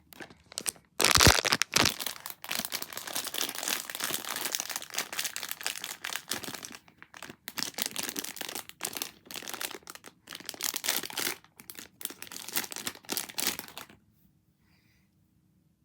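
Packaging being crinkled and handled: irregular, noisy plastic or foil rustling, loudest about a second in, which stops about a second before the end.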